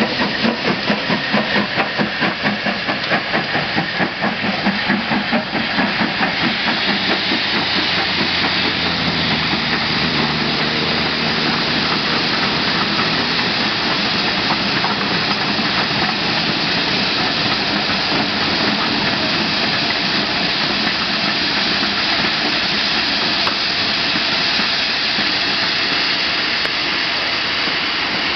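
Stanier Black 5 steam locomotive working a train away, its exhaust beating rhythmically for the first several seconds, then giving way to a steady, loud hiss of steam from the standing Manor-class locomotive as the coaches run past.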